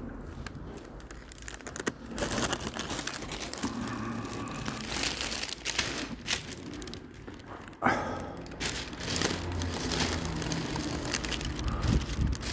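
Rustling and crinkling of crinkly material rubbing against a handheld phone's microphone as it is carried along, with a sharper thump about eight seconds in.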